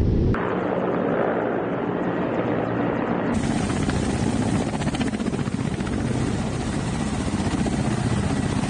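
Kamov Ka-52 coaxial-rotor attack helicopter running on the ground, rotors turning: a steady helicopter sound with a rapid rotor beat.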